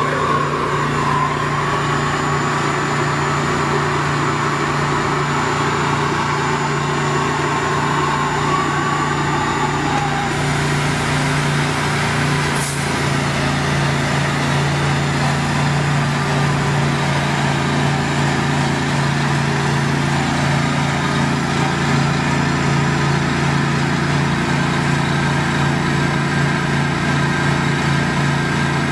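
Small engine of the ThawRig's equipment running steadily at constant speed. A faint wavering whine sits over it in the first third, and there is a single click about twelve seconds in.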